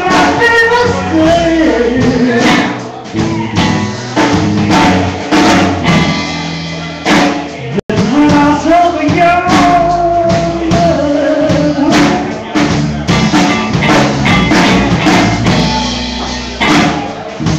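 Live rock band playing through a phone's microphone: drum kit, guitars and singing, loud throughout. The audio cuts out for an instant about eight seconds in.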